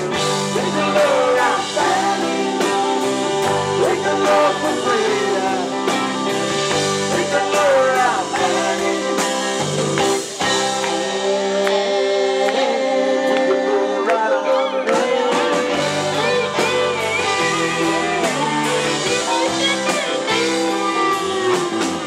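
Live band music: electric and acoustic guitars playing with a singing voice over them. The low bass notes drop out for a few seconds in the middle, then come back.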